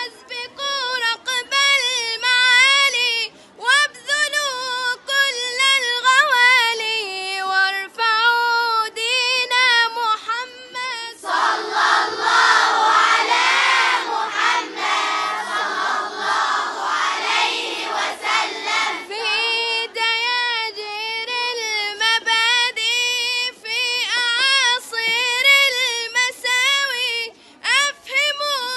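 A young girl's high voice in melodic, Quran-style recitation, long ornamented phrases broken by short breaths. About eleven seconds in, a dense sound of many voices together takes over for some eight seconds, then her solo recitation resumes.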